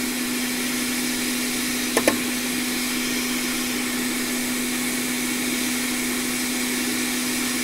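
Hot air rework station blowing steadily with a low hum, heating the solder of a small capacitor so it can be lifted off a logic board. Two quick clicks about two seconds in.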